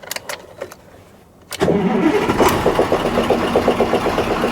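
KAMAZ 65225 truck's V8 diesel engine starting about a second and a half in, after a few faint clicks, and then running with an even rhythmic beat. This is its first start after being reassembled to cure an engine knock.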